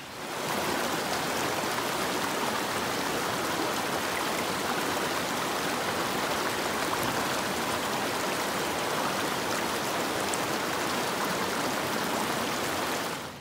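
A shallow creek rushing over rocks in small rapids, a steady, loud rush of water heard close to the surface. It starts just after the opening and cuts off suddenly near the end.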